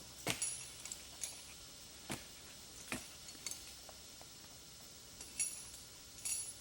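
Metal gear clinking and jingling: about eight irregular sharp clinks, some with a brief bright ring, over a faint steady background.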